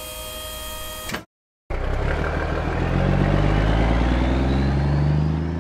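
Cartoon truck sound effects. A steady mechanical hum with a few fixed tones plays as the dump truck's tipper bed settles, and cuts off about a second in. After a short silence a truck engine starts and revs, its pitch slowly rising as the truck drives away.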